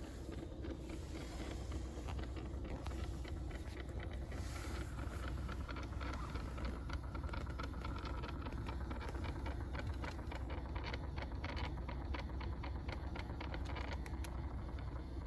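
Fairly loud rapid clicking and rattling (kacha-kacha) from the air-conditioning system of a Honda Odyssey Hybrid RC4 while the AC runs, over a steady low hum; the clicks are thickest in the second half. The owner suspects the air-mix door motor.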